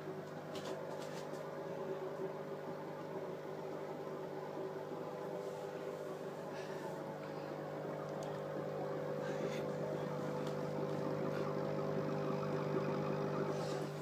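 Steady hum of a bubble lava lamp's small electric air pump, with the bubbling water in the lamp and a few faint clicks.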